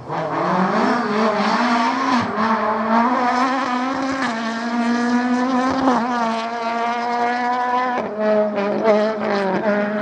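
Rally car engine at full throttle, its pitch climbing and then dropping sharply about every two seconds as it changes gear.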